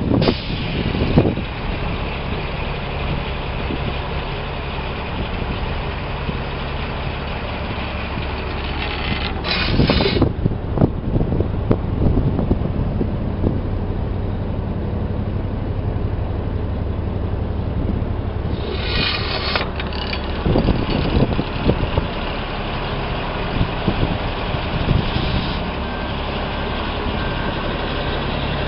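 Sterling LT8500 plow truck's diesel engine idling steadily, with two brief hisses, about ten seconds in and again about nineteen seconds in.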